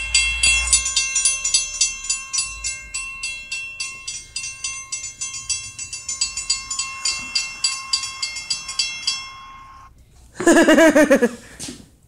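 Sound of a video playing through a handheld device's small speaker: a fast run of sharp clicks over steady electronic tones, which stops about nine and a half seconds in. A brief, loud voice follows near the end.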